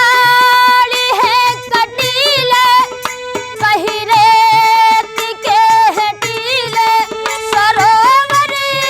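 A woman singing a high, ornamented Indian folk-style melody with wavering pitch, over a hand-drum accompaniment with regular strokes.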